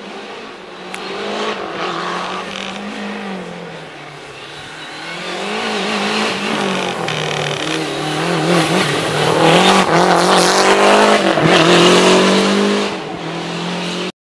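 A Lancia Delta rally car's turbocharged four-cylinder engine revving up and down through the gears as it takes a tight turn and accelerates away. It gets louder about halfway through and is loudest near the end.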